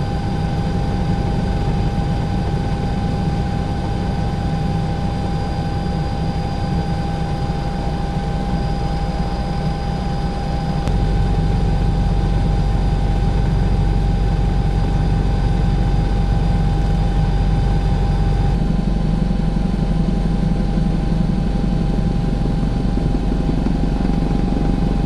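Helicopter cabin noise: a steady low drone from the rotor and engine, with thin steady whines above it. The drone shifts in strength twice, about eleven seconds in and again past the middle.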